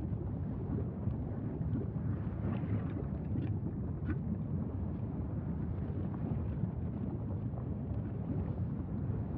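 Lava fountain at Mauna Loa's fissure 3 vent erupting continuously: a steady, deep rumble with a few faint crackles.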